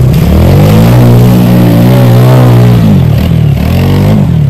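ATV engine revving hard and loud. It climbs in pitch over the first second, holds high, drops off about three seconds in, then gives a shorter rev near the end.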